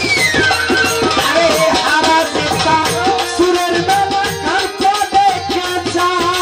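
Bengali Baul folk music in an instrumental passage: a melody line that slides up and down in pitch over steady, busy drumming.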